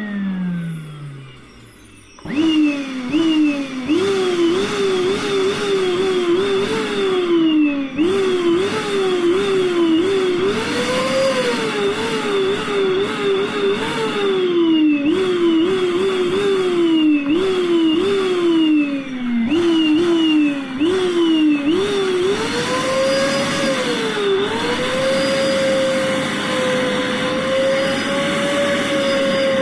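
A 1700-watt vacuum cleaner run with its power control worked like a throttle. Over its steady rush, its pitch climbs and drops again and again like a racing engine shifting up through the gears. It drops out briefly about two seconds in and settles to a steadier high whine near the end.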